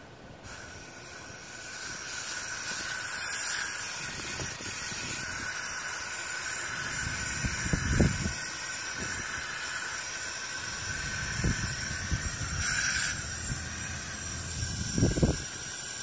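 Fix-a-Flat aerosol tire sealant can hissing steadily as it discharges through its hose into the tire valve, starting about half a second in. A few dull bumps of handling come through, the loudest near the middle and near the end.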